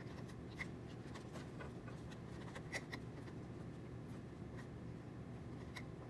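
Scattered small clicks and taps of wires and a plastic connector being handled and pushed into a socket on a 3D printer's control board, over a steady low hum.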